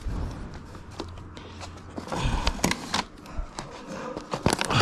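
Filled plastic water bottles being handled and pushed under the straps of a loaded bicycle pack: rustling of plastic and fabric with scattered sharp clicks, louder from about two seconds in.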